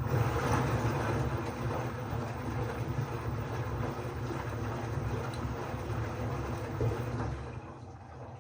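LG FH0B8LD7 front-loading washing machine running a drum-cleaning cycle: a steady mechanical rumble of the drum turning, easing off near the end.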